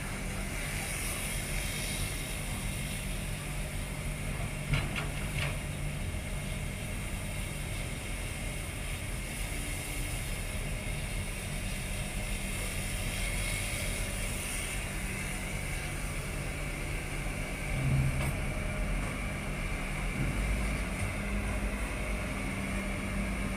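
Diesel engine of a hydraulic excavator running steadily with a low drone as it scoops soil and loads a dump truck. Two short knocks come about five seconds in.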